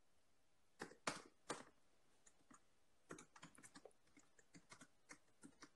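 Faint clicks and taps close to the microphone: three sharper clicks about a second in, then a quick irregular run of small clicks, like typing, from about three seconds on.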